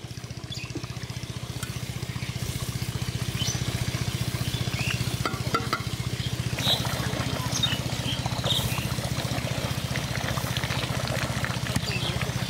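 A steady low engine-like hum, with scattered small pops and clicks from a huge pan of chicken and potato curry cooking over a fire.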